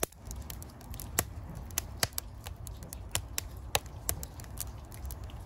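Freshly lit split-wood fire crackling in a brick stove's firebox: irregular sharp pops and snaps, several a second.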